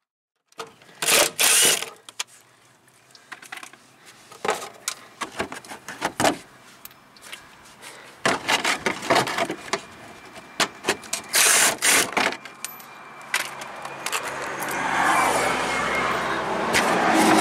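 Hand tools and plastic fasteners clicking, clattering and rattling as a car's plastic under-engine splash shield is worked loose. In the last few seconds there is a longer scraping and rustling.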